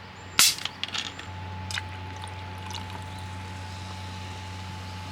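A small amount of drink being poured, with a sharp clink about half a second in and a few lighter clinks over the next second. A steady low hum starts about a second in and continues.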